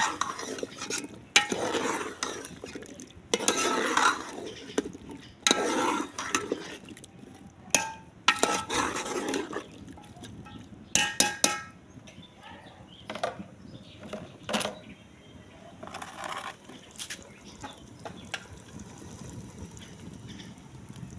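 Metal ladle stirring arvi and potatoes in an aluminium cooking pot, scraping and knocking against the pot in repeated bursts. About eleven seconds in come a few ringing metal clinks, and the stirring then turns fainter and sparser.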